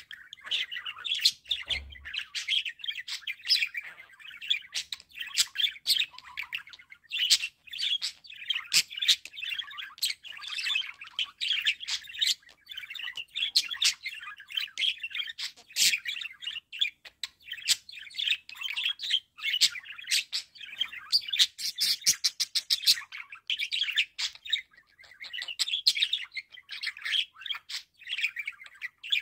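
Budgerigars warbling and chattering: a continuous stream of quick chirps, squeaks and clicks, with a fast run of clicks a little over twenty seconds in.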